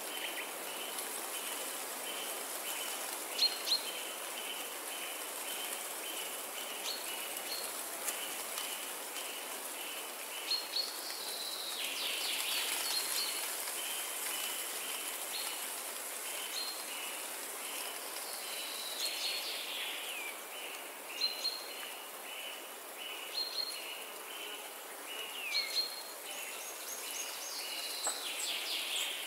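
Forest ambience: a steady hiss of wind through leaves. Over it, a short chirp repeats about twice a second, with scattered bird calls, a few sliding down in pitch.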